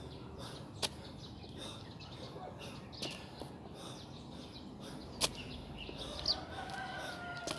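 Birds chirping, with a few sharp clicks and a rooster crowing near the end.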